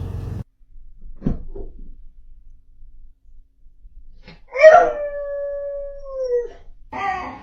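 A dog howling: one long, steady note held for nearly two seconds that drops in pitch as it ends. A short dog sound comes about a second in.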